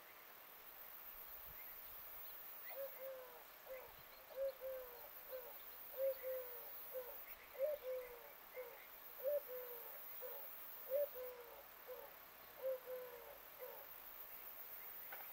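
A bird calling a long series of short, low notes, about one to two a second, starting about three seconds in and stopping shortly before the end.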